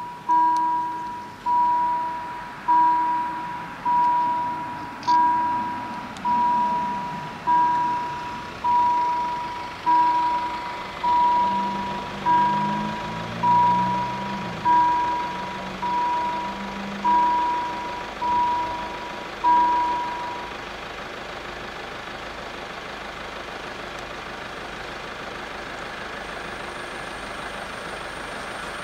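Railway level-crossing warning bell striking slowly, one clear ding about every 1.2 seconds, each dying away: the warning that a train is approaching and the barriers are lowering. The bell stops about 20 seconds in, leaving steady background noise.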